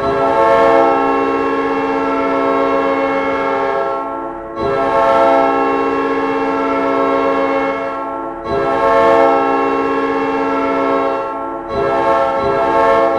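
Hockey goal horn: a loud multi-tone horn chord sounding in long blasts of about three to four seconds each, with brief breaks between them, four blasts in all.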